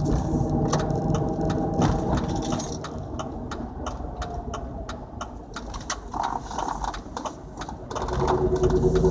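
2004 Dodge Durango's 5.7 Hemi V8 running. It is revved, drops back about two seconds in, and comes up again near the end, with an irregular rattling and ticking throughout. The owner complains of a rattle when the gas is stomped and let off.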